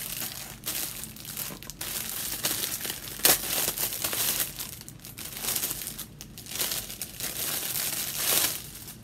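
Thin clear plastic packaging crinkling and rustling as it is opened and handled, with one short, loud crack about three seconds in.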